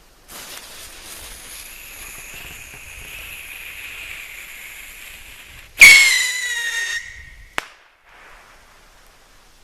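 Bottle rocket: the fuse hisses for about five seconds, then the rocket launches with a loud whistle that falls in pitch as it flies off, followed by one sharp pop about a second and a half later.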